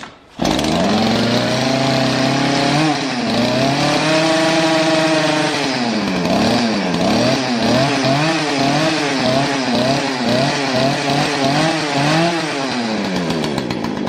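Small two-stroke chainsaw engine, running without its bar and chain after a carburetor cleaning. It starts running about half a second in, is revved up and held, then has its throttle blipped up and down about once a second, and drops back toward idle near the end.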